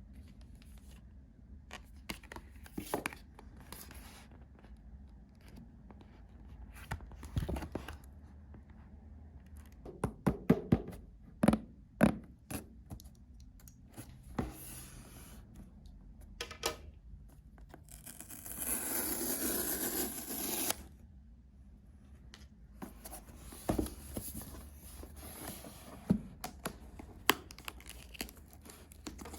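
Packaging and accessories being handled during an unboxing: scattered clicks and taps, with a rough tearing sound lasting about two seconds about two-thirds of the way through.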